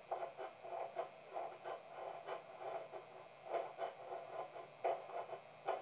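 A teething baby's teeth scraping on a wooden crib rail: a sawing sound in quick, uneven strokes, a few a second, with a couple of stronger strokes in the second half.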